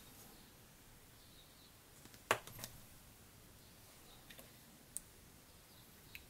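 A few light clicks and taps of tweezers and small craft items handled on a tabletop, with one louder knock about two seconds in, over quiet room tone.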